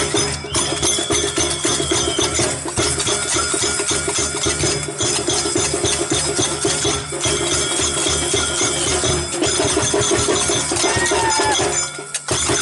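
Music with a fast, steady, dense beat and a melody line over it; it drops out for a moment near the end.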